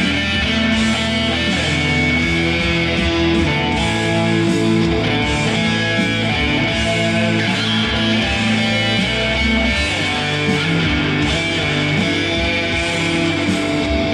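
Electric guitar played through an amplifier, with long sustained notes held at a steady loudness.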